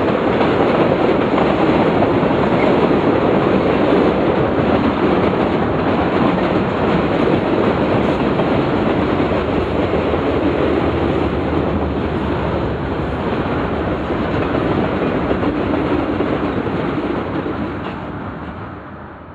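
Freight cars rolling past on a bridge: steady rumble and clatter of steel wheels on the rails, fading away near the end as the last cars clear.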